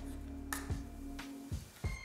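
A handheld BeanBoozled plastic spinner being spun, giving a few light sharp clicks, over a faint steady low tone that stops about one and a half seconds in.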